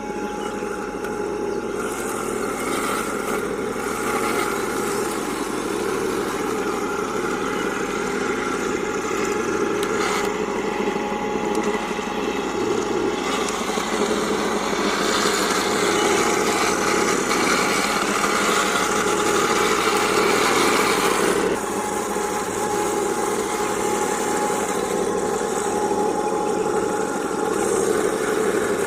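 1/16 MATO all-metal Tiger I RC tank running, with steady engine-like noise and a thin steady whine. The noise grows louder and busier partway through, then drops back near the end.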